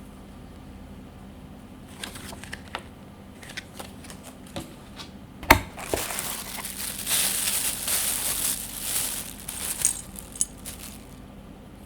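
Keyboard packaging being handled while unboxing: light taps and clicks, a sharp knock about five and a half seconds in, then a few seconds of loud plastic wrapping crinkling.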